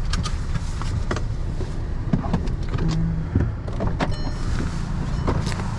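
Vehicle engine idling with a steady low rumble, under scattered clicks and knocks from the cabin, with a brief high chime about four seconds in.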